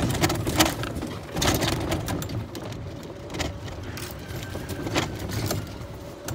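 Golf cart driving along a bumpy dirt track: a low running sound with frequent rattles and knocks from the cart body, busiest in the first second or so.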